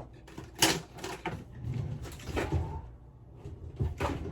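Kitchen cabinetry being opened and shut, a handful of separate knocks and clatters with a cluster near the end, as a utensil is fetched.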